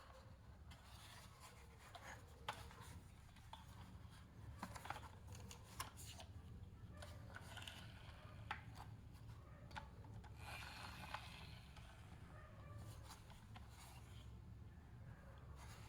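Faint hand-handling noises: scattered light clicks and taps with soft rubbing and scraping, busier about ten seconds in, over a low steady hum.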